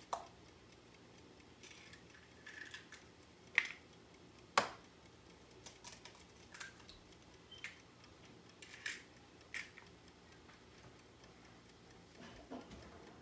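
Scattered light clicks and taps of eggs being cracked into a cup of milk and worked in by hand, with two sharper taps about three and a half and four and a half seconds in.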